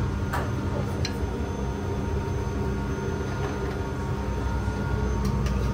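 Steady low mechanical hum with a few short, light clicks: one a little after the start, one about a second in, and two near the end.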